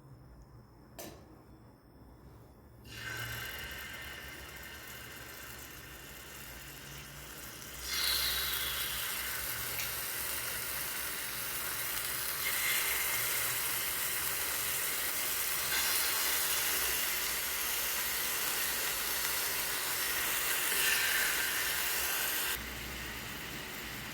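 Marinated chicken pieces sizzling in hot oil in a frying pan. The sizzle starts about three seconds in, grows louder about eight seconds in, and eases off near the end.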